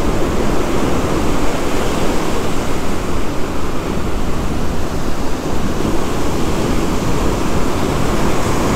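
Heavy ocean surf breaking and washing up the beach in a steady rush of noise, with wind buffeting the microphone.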